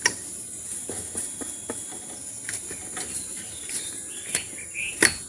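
Steady high-pitched insect chorus of crickets, with scattered sharp clicks and taps, the loudest at the very start and near the end, and a few short chirps about four seconds in.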